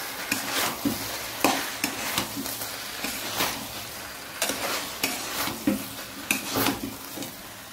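Wooden spatula stirring and scraping through veg Manchurian balls in thick sauce in a hot frying pan, the sauce sizzling steadily under a dozen or so irregular scraping strokes.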